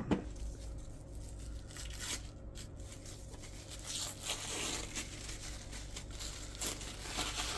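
Packaging being torn and crinkled by hand as a razor's shipping wrapper is opened, in several separate rustles.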